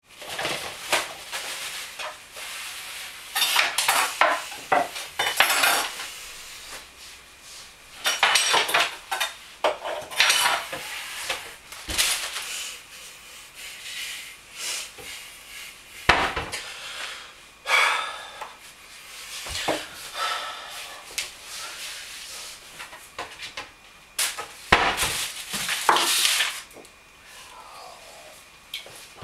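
Dishes and cutlery clattering in irregular bursts of sharp clinks and knocks as they are handled and set down, with short lulls between.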